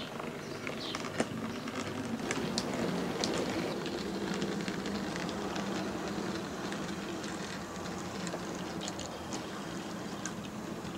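OO gauge model goods train running past: a steady hum from the small electric locomotive, with irregular light clicks of the wagon wheels on the track, a little louder from about two seconds in.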